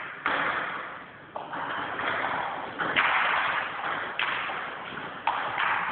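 Table tennis rally: the celluloid ball cracking off the paddles and bouncing on the table, a string of sharp clicks about every half second to a second, each followed by a hall echo.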